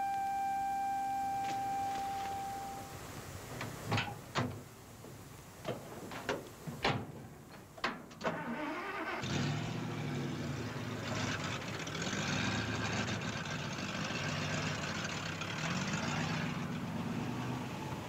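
A music note fades away, then several sharp knocks. About nine seconds in, a pickup truck's engine comes in and keeps running, its pitch rising and falling as it revs while the truck drives through loose sand.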